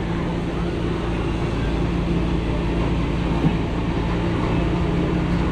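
Chairlift machinery running with a steady low mechanical hum as the chair rides on its cable.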